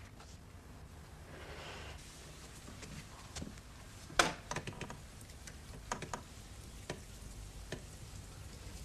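A few sharp, irregular clicks and knocks from a door handle being tried, the loudest about four seconds in, against a low room hum.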